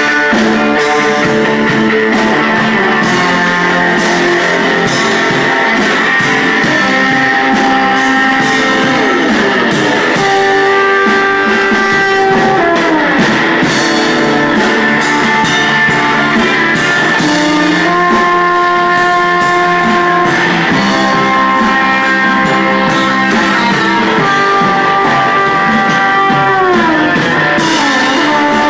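Rock music: a guitar plays long held notes that bend and slide smoothly from one pitch to the next, over drums keeping a steady beat.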